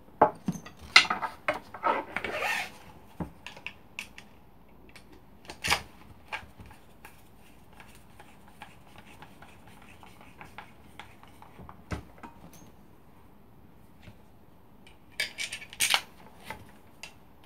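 Tools and router parts being handled on a workbench mat: a screwdriver set down and the router's motor body picked up and turned in the hands. Scattered clicks, knocks and rattles of plastic and metal, busiest in the first few seconds and again near the end, with single knocks between.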